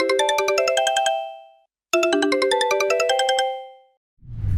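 Sony Ericsson phone ringtone: a short bright melody of quick chiming notes, played twice with a brief gap between, each phrase ringing out as it ends. A low whoosh starts near the end.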